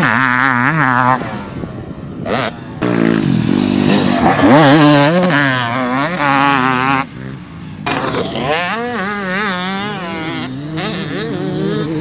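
Fuel-injected 300 cc two-stroke engine of a 2023 KTM 300SX motocross bike revving hard under load, its pitch rising and falling with the throttle. The throttle is chopped briefly about two seconds in and again around seven seconds in.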